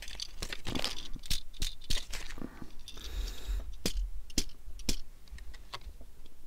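Irregular small clicks, taps and light scrapes of 1:64 die-cast model cars being handled, with a brief rustle about three seconds in.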